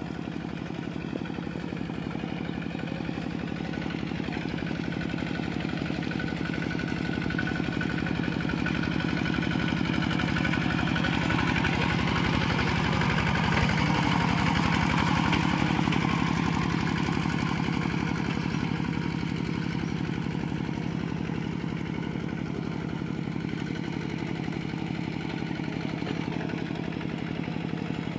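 Kubota RT120 walking tractor's single-cylinder diesel engine running steadily as it pulls through deep paddy-field mud. It grows louder as it passes close by about halfway through, then fades again.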